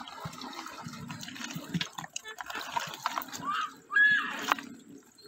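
Wet splashing and sloshing from a container crowded with small live fish in shallow water as a hand digs through them, with many small wet clicks. A short voice sounds about four seconds in, the loudest moment.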